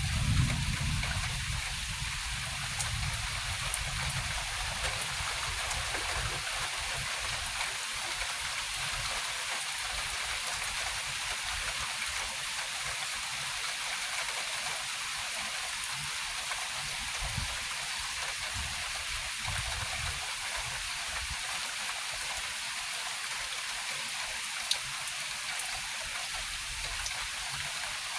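Steady hiss of rain. A low rumble fades out over the first couple of seconds, and there is one brief click about 25 seconds in.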